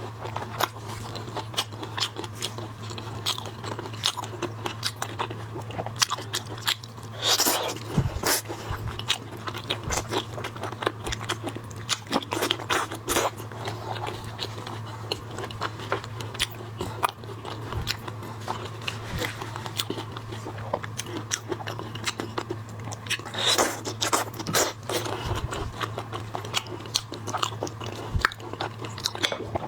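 Close-up eating of shrimp and crab: shells crunching and cracking, with chewing, in a dense run of irregular crackles and clicks. A steady low hum sits underneath.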